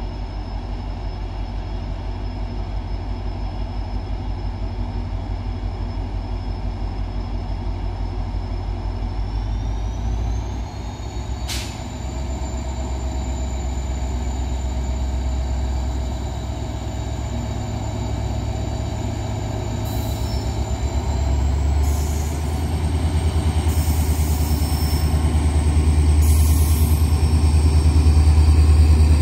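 EMD WDP-4D diesel locomotive approaching slowly, its engine running with a steady low throb that grows louder as it nears. A thin high whine above it steps up in pitch twice, and there is a single sharp click about eleven seconds in.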